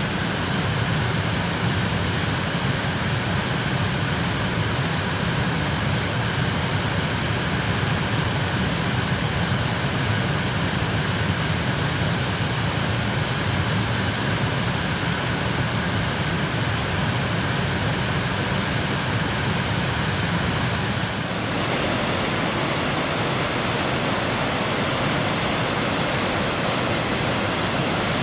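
Rain-swollen river rushing loudly and steadily after heavy typhoon rain. About three-quarters of the way through the sound changes abruptly to a lighter, hissier rush of water.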